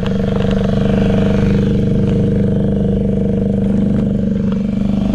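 Small kicker outboard motor running steadily at trolling speed, heard close up, a constant low drone with an even pitch.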